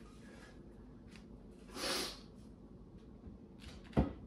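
A short breathy rush about two seconds in, then a single sharp knock near the end as a painted wooden face frame is set down onto a plywood cabinet box.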